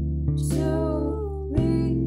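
Background music: a song with plucked guitar notes and a singing voice.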